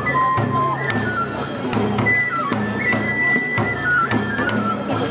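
Izumo kagura music. A high bamboo flute plays a melody in stepped notes, falling from high to lower and climbing back, over a repeating drum beat with frequent sharp cymbal strikes.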